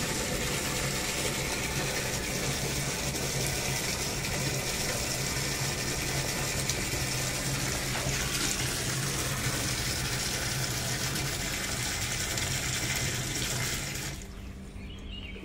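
Steady rush of running water, with a low hum under it; it drops away suddenly near the end.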